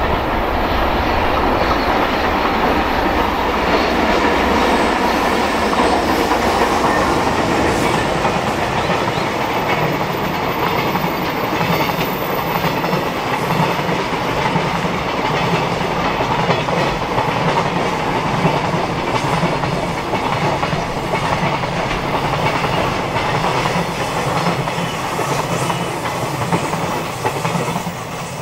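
JR Freight EH500 electric locomotive hauling a long container freight train past, the steady rumble and clickety-clack of the container wagons' wheels over the rails continuing until the last wagon clears at the very end.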